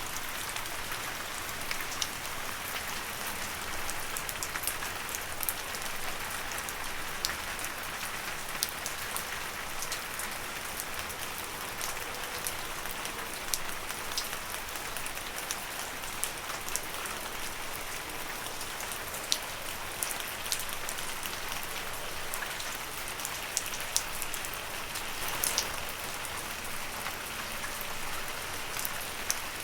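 Steady rain falling on leaves: an even hiss with many distinct drops pattering and ticking throughout.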